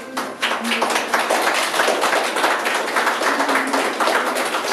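A small group of guests applauding, many hands clapping fast and steadily, swelling in just after it begins.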